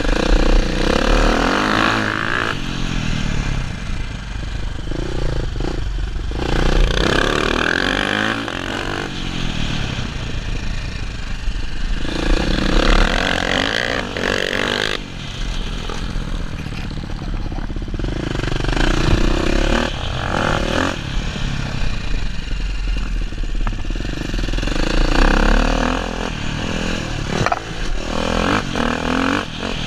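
Dirt bike engine revving hard and easing off in repeated surges, one every five or six seconds, as the bike accelerates down straights and slows for turns. A steady low wind rumble on the helmet-mounted microphone runs underneath.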